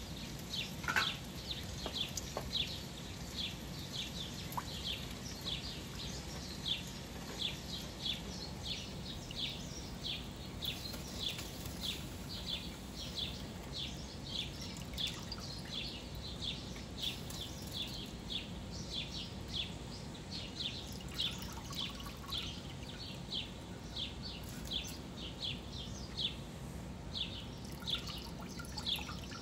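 A bird chirping over and over, short high downward chirps about twice a second, over a low steady hum.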